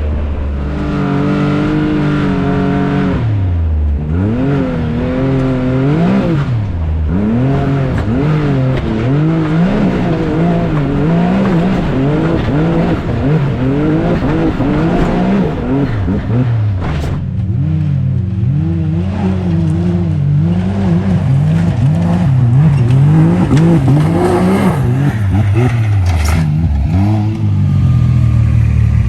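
Can-Am Maverick X3 side-by-side's turbocharged three-cylinder engine revving up and down again and again as it works over a steep, roughly 45-degree slope, settling to a steady run around the middle and again near the end.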